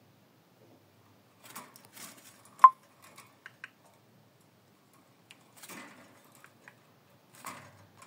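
Small pet parrot moving about its wire cage: scattered light clicks, taps and rustles of beak and feet on perch and bars. A little over two and a half seconds in comes one short, sharp sound, much the loudest.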